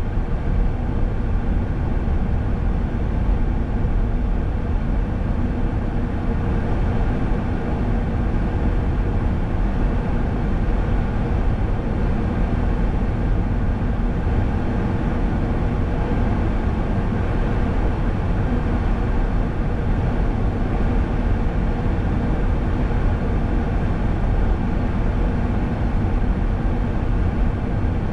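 Car driving at a steady speed: constant engine and tyre road noise, strongest in the low end and unchanging throughout.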